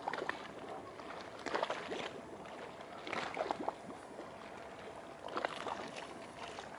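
Small waves lapping and splashing against the water's edge in calm sea, a short wash every second or two.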